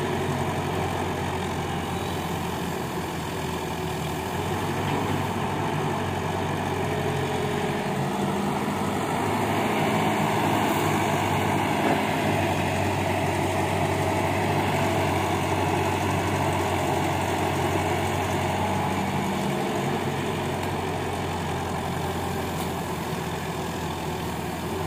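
Caterpillar hydraulic excavator's diesel engine running steadily while the machine digs and swings, somewhat louder for a few seconds in the middle.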